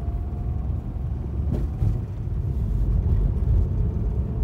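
Lada Vesta Cross driving, its engine and tyre noise a steady low rumble heard from inside the cabin, with one brief knock about one and a half seconds in.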